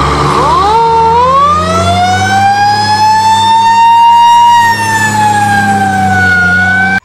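Fire truck siren winding up in the first second, then one long slow wail that rises and falls, over a steady low hum; it cuts off suddenly at the end.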